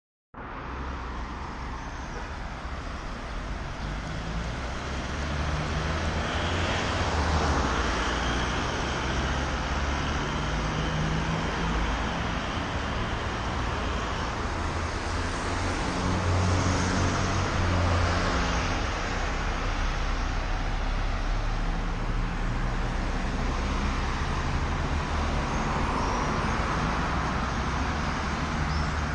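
City street traffic: cars passing on the road, their engine and tyre noise swelling and fading several times over a steady hum.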